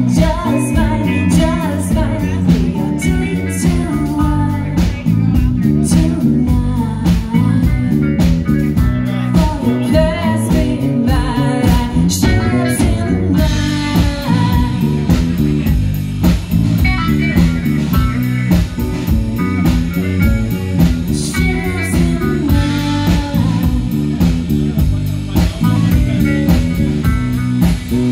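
Live rock band playing: bass and electric guitars, drum kit, and a woman singing over them. The sound is loud and dense, with steady drum hits.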